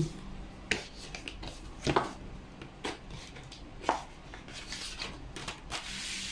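Handling of a ZTTO Ice Tech bicycle disc brake rotor and its packaging on a table: four sharp clacks about a second apart, then plastic packaging rustling near the end.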